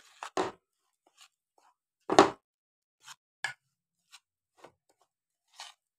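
Two metal spoons stirring a spice and gram-flour mix in a ceramic dish: a handful of short, scattered scrapes and clinks of metal on china, the loudest about two seconds in.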